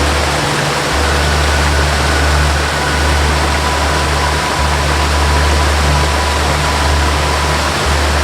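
Steady rush of a waterfall under ambient music: a low held drone with a slow melody of long sustained notes, changing every few seconds.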